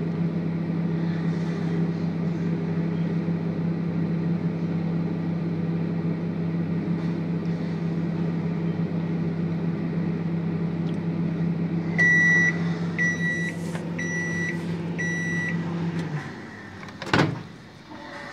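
Microwave oven running with a steady low hum. When its timer runs out, a little way past the middle, it gives four short high beeps about a second apart. The hum then stops, and the door opens with a sharp click.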